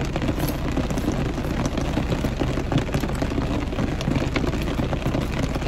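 Rain falling on a car's roof and windows, heard from inside the cabin: a steady hiss with many small scattered drop ticks.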